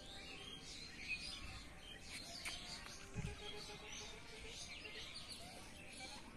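Small birds chirping faintly in the background, with one soft low thump about three seconds in.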